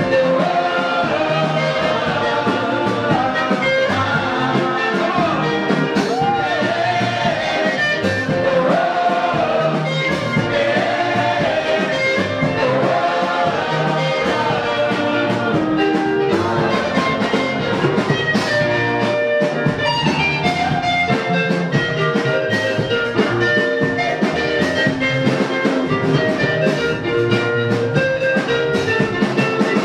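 Live gospel worship music: a lead singer on a microphone with a choir singing over instrumental accompaniment with a steady beat.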